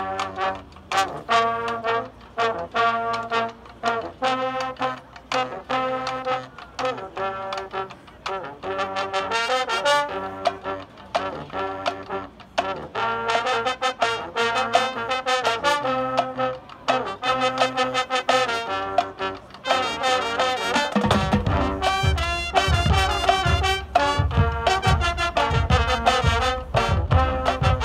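Drum and bugle corps playing an upbeat tune: brass horns over a steady beat of marching drums. About three-quarters of the way through, a heavy deep bass with a pulsing beat comes in and the sound gets fuller.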